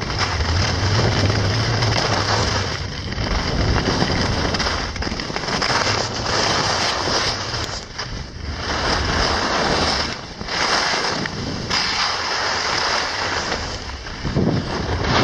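Wind rushing over the microphone of a skier going downhill, mixed with skis scraping and swishing over packed snow, rising and falling in swells as the turns go.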